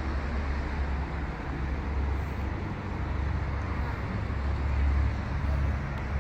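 Steady low rumble of a road vehicle driving, with an even wash of road noise.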